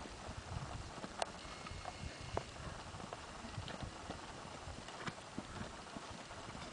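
Faint hoofbeats of a ridden grey horse moving over a sand arena footing: soft, dull, repeated thuds, with a few sharper clicks.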